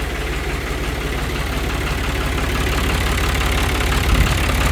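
Long 350 farm tractor's diesel engine idling steadily.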